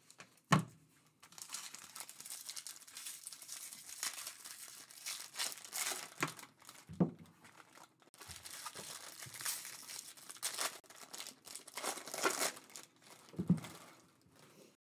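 Foil wrappers of Topps Series 1 jumbo baseball card packs crinkling and tearing as the packs are ripped open, with three knocks of cards or packs set down on the table.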